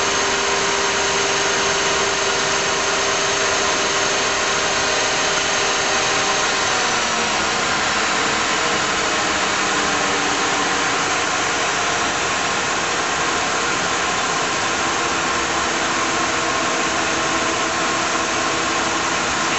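1943 Monarch 10EE lathe running under its motor-generator drive: a steady mechanical whine made of several held tones. About six seconds in the pitch shifts lower, as the spindle speed is changed at the headstock control.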